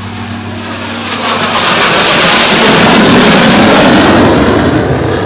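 Pair of Sukhoi fighter jets making a low pass: a jet roar that swells to its loudest about two seconds in, holds, then eases off near the end.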